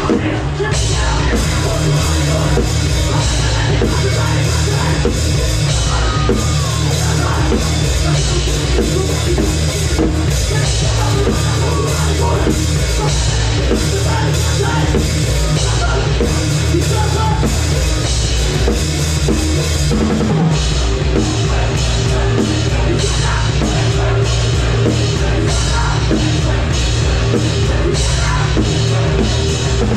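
Rock band playing loud live: a drum kit over heavy guitars and bass in a steady, unbroken song.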